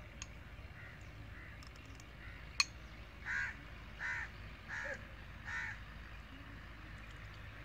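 A crow cawing, with four caws in a row about three to six seconds in and fainter calls before them. A single sharp click comes about two and a half seconds in.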